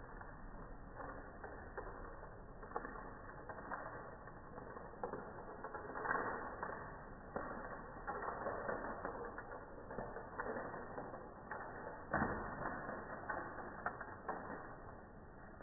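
Woven popsicle sticks springing apart in a chain reaction: a fast, uneven clatter of small wooden clicks and snaps, with louder bursts every couple of seconds.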